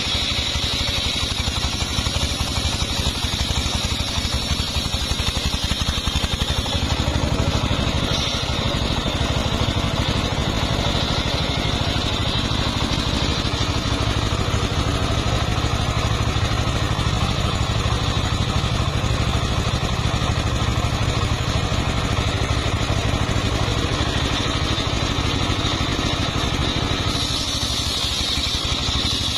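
Engine of a homemade circular sawmill running steadily, with a steady high whine above it. The sound grows heavier about a quarter of the way in and lightens again near the end.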